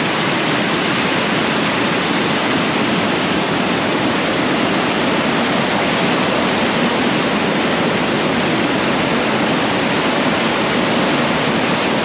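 Stream water rushing and bubbling in full flow, a steady loud rush of water.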